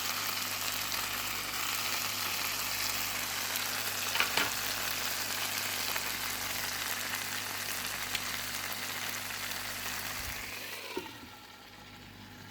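Pork belly, broccoli and tomato slices frying in oil in a lidded pan, a steady sizzle. A single sharp knock comes about four seconds in, and the sizzle turns quieter near the end.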